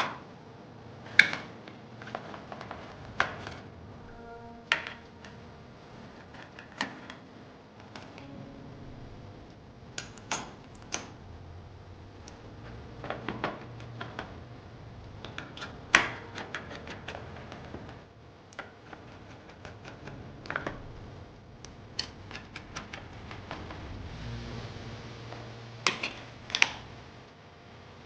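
Irregular sharp clicks and light knocks of hard parts being handled and fitted, sometimes singly and sometimes in quick little clusters, over a faint low hum.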